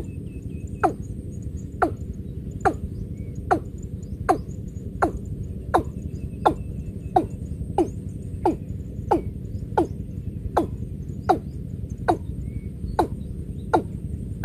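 Watercock calling: a steady series of short, deep notes, each dropping in pitch, about one every three-quarters of a second.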